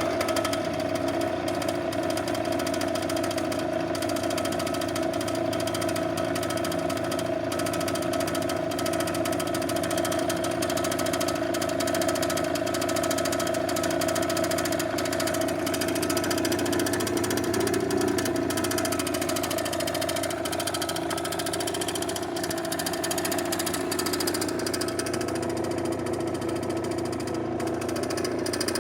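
Piaggio Typhoon scooter's two-stroke engine, fitted with a 70 cc DR Evo cylinder kit, idling steadily through a Tecnigas Silent Sport exhaust.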